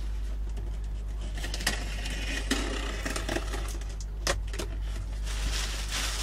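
Cardboard parcel being opened by hand: a blade slitting the packing tape, and cardboard and a plastic bag rustling. Scattered scrapes and clicks sound over a steady low hum.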